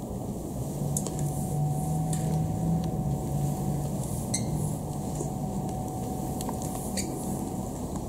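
Flat mop being pushed over a wet tiled floor, with a few light clicks and squeaks from the mop head and shoes, over a steady low hum.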